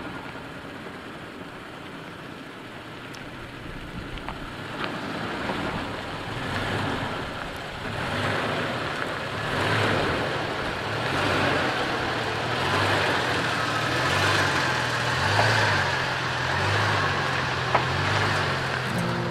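Toyota Tacoma pickup driving slowly along a dirt trail: engine running and tyres rolling over dirt, growing louder as it comes closer.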